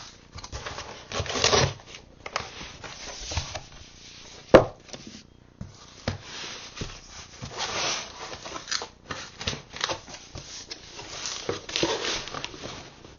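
Cardboard shipping box being opened by hand: tape and packing material tearing, rustling and scraping in uneven bursts, with one sharp knock about four and a half seconds in.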